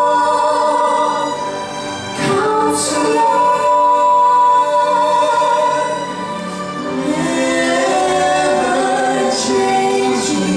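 Choir singing a Christmas piece with orchestral accompaniment, holding long sustained notes with a brief break between phrases about two seconds in and again about six seconds in.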